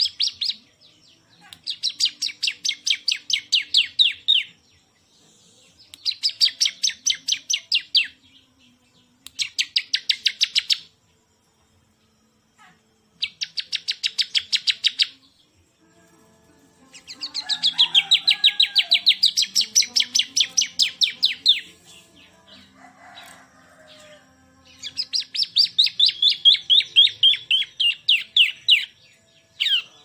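A caged bar-winged prinia (ciblek) singing: about seven phrases, each a fast, even string of sharp, high notes lasting a few seconds, with short pauses between phrases.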